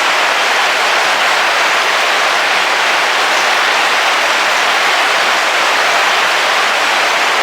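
Heavy rain falling steadily on a car's roof, heard from inside the vehicle as an even, unbroken hiss.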